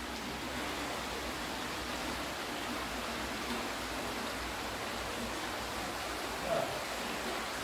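Natural stream running beneath the floor: a steady, even rush of water.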